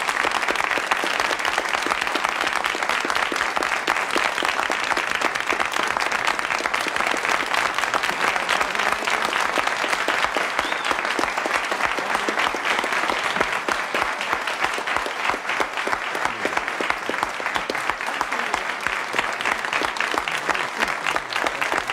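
Studio audience applauding, a dense run of many hands clapping at a steady level.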